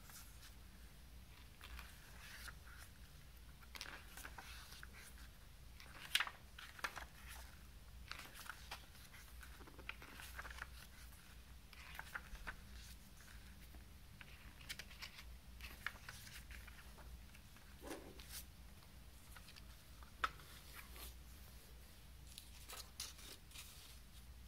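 Pages of a paper CD booklet being turned and pressed flat by hand: scattered soft paper rustles and light taps, with a few sharper ones about six seconds in and again near twenty seconds.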